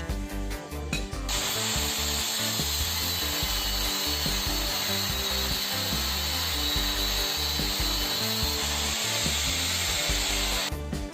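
A power tool runs with a steady rasping noise for about nine seconds, starting about a second in and stopping abruptly near the end, over background music.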